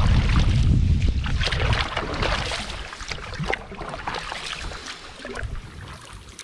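Double-bladed paddle strokes dipping and splashing beside a canoe, with water dripping off the blades. Wind rumbles on the microphone for the first two seconds or so, then dies down.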